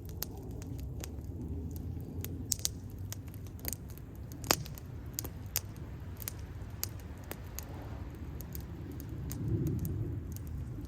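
Wood campfire burning, crackling with irregular sharp pops, the loudest about halfway through, over a low rumble of the flames.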